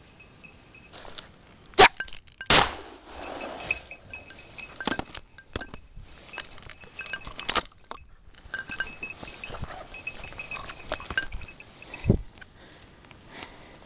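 Two shotgun shots fired less than a second apart, each ringing briefly in the forest. Then rustling and footsteps through brush and heather, with light clinking and a dull thump near the end.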